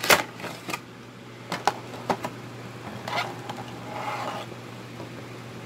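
Cardboard collector's box and its clear plastic insert being handled as a Funko Pop vinyl figure is taken out: a cluster of sharp clicks and knocks in the first second, a few more around two seconds in, then plastic crinkling about three and four seconds in.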